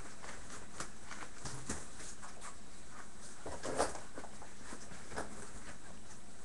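Five-week-old bearded collie puppies' paws pattering and clicking on a wooden floor, with scattered small knocks and a louder bump about four seconds in as a puppy climbs onto a raised fabric dog cot, over a steady hiss.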